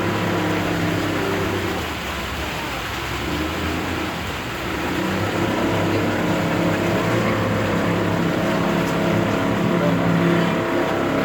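Boat engine running steadily, a constant droning hum over a wash of water and wind noise, easing slightly a couple of seconds in and then steadying again.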